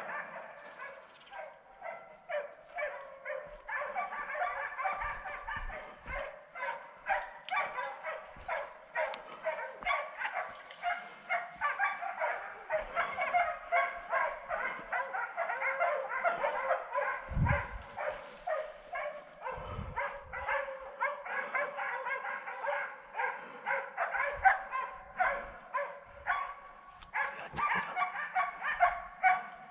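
Hunting dogs barking and baying without pause, many short barks overlapping throughout: hounds running a wild boar.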